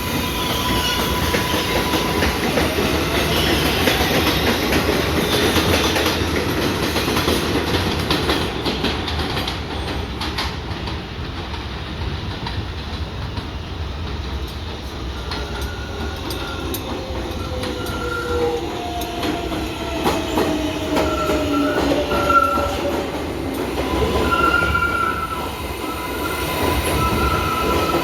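An R188 subway train on the 7 line running through the station, with rumbling wheels, clatter over the rail joints and intermittent wheel squeal. In the second half a motor whine falls in pitch as the train slows.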